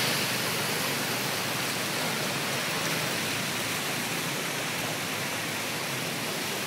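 Steady, even rushing noise of water in a street flooded calf-deep, with no single splash or engine standing out.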